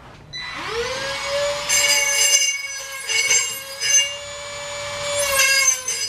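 A small hand-held power tool spins up about half a second in and runs with a steady whine, grinding against the steel shell of an emptied fire extinguisher in several short scraping bursts. It is smoothing out a freshly drilled hole for a Schrader valve.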